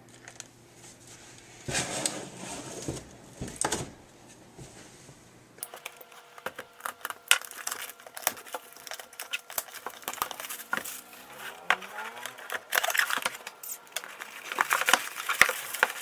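Cardboard box and packaging being handled: two short rustles, then from about six seconds in a busy run of rustling, crinkling and small clicks and knocks.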